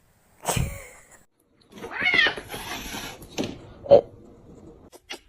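Cat meowing, with one drawn-out call about two seconds in. There is a short noisy burst about half a second in and a brief sharp sound near four seconds.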